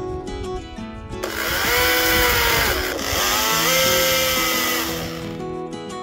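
A Husqvarna 535i XP battery-electric chainsaw with a carving bar cutting into a log. It makes two cuts back to back from about a second in, its motor whine rising as it speeds up and falling away near the end, over background acoustic guitar music.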